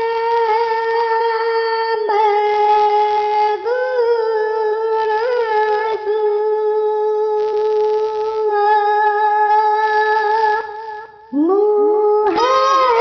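Quranic recitation: a single voice chanting in long held notes, with short rising-and-falling ornaments between them and a quick breath near the end.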